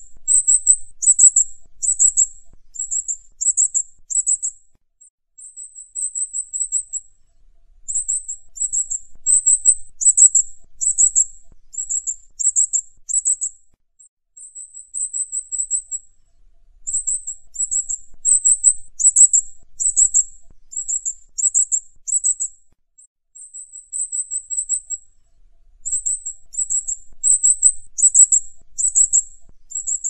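Vernal hanging parrot calling: rapid series of very high, short chirps that drop slightly in pitch, broken every few seconds by a brief, even twittering run.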